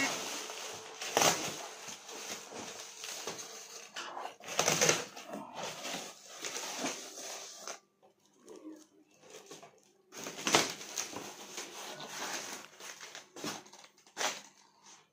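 Plastic stretch wrap and cloth packing crinkling and rustling as they are pulled off by hand, in irregular bursts with a few sharper crackles. It goes quieter for a couple of seconds around eight seconds in.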